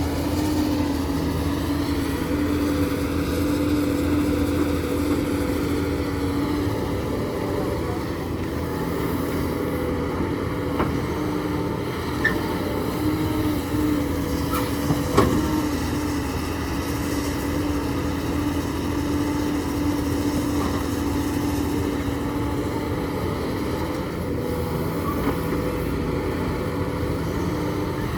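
Diesel engine of a hydraulic excavator running steadily at a constant pitch, with a few sharp knocks, the loudest about fifteen seconds in.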